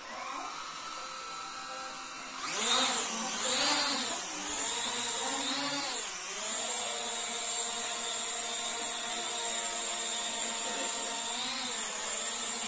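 Small foldable toy quadcopter's electric motors and propellers whining. The motors spin up at the start, then the pitch and loudness swell and fall about three times from roughly two and a half seconds in as it lifts off, and it settles into a steady high whine while hovering.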